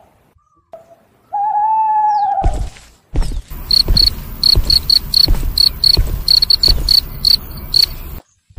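A long, steady whistled tone. Then, from about two and a half seconds in, a rapid run of high cricket chirps over low thudding footsteps, about two to three a second, which cuts off suddenly near the end.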